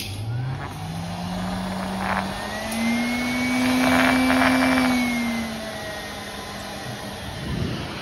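Brushless-motor pet blower switching on and running, a motor hum and high whine over the rush of air. It steps up in speed to its loudest around the middle, then drops back to a lower speed.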